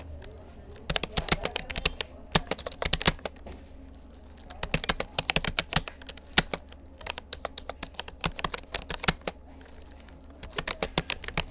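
Typing on a Rapoo computer keyboard: quick runs of key clicks broken by short pauses.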